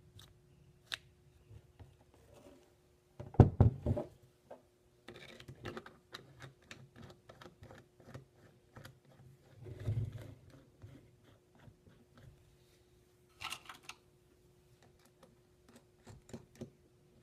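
Metal parts of a Rivet King RK-50SP rivnut tool being handled and fitted while its mandrel is changed: scattered clicks and knocks. The loudest clatter comes about three and a half seconds in, and a duller knock about ten seconds in.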